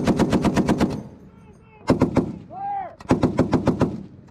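M2 .50-calibre heavy machine guns firing in short bursts: a rapid burst of about eight rounds, two more shots about two seconds in, then another burst of about eight rounds.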